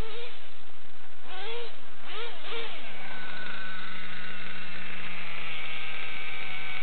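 Dynamite .28 Big Red two-stroke nitro engine in a Traxxas Revo RC truck, its pitch rising and falling several times as the throttle is worked. About three seconds in it settles into a steady idle.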